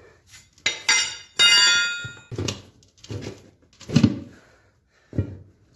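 A steel tire iron clangs twice against metal while working a small tractor tire's bead off its steel rim, the second clang ringing for over half a second. Then a few dull thumps about a second apart, from stepping on the tire.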